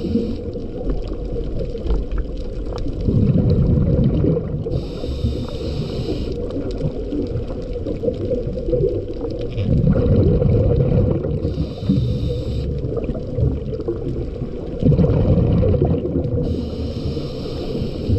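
Scuba regulator breathing heard underwater over a steady low rumble. Three times, a bubbling gush of exhaled air is followed by the hiss of an inhalation lasting about two seconds, roughly every six seconds.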